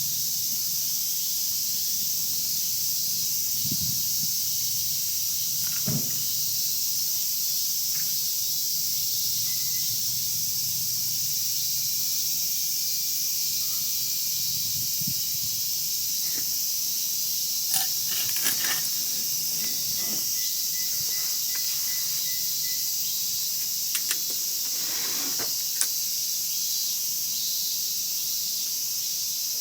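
Wood fire crackling, with a few sharp pops and snaps here and there, over a steady high hiss.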